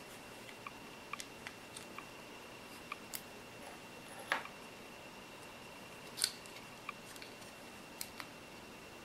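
Faint scattered clicks and taps of small plastic parts being handled by fingers while a tiny spring is worked into a plastic fifth-wheel coupler, with two louder clicks about four and six seconds in. A faint steady high-pitched tone sits in the background.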